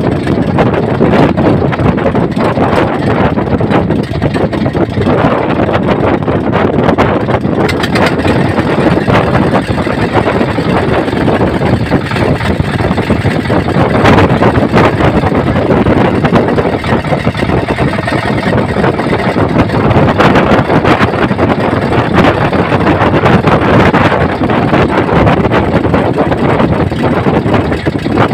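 Loud, steady rumbling rush of strong wind and rough sea around a small outrigger fishing boat, with no let-up.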